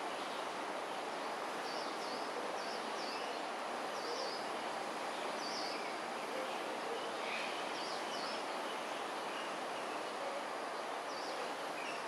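Steady outdoor hiss by a river, with short high chirps repeating irregularly, about a dozen in all, several in quick pairs.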